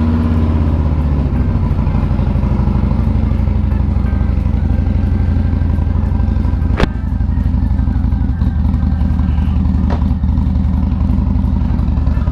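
Harley-Davidson V-twin motorcycle engine idling steadily just after starting, with an even, rhythmic pulse. A sharp click comes about seven seconds in and a fainter one near ten seconds.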